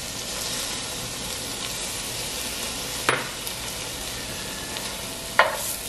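Onion, garlic and tomato paste sizzling steadily in a hot pot with a little water just added, stirred with a wooden spoon that knocks against the pot twice, about three seconds in and near the end.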